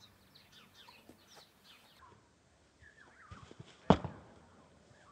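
A foam training sabre strikes the other blade with one sharp whack about four seconds in, after a few lighter knocks. Birds chirp throughout.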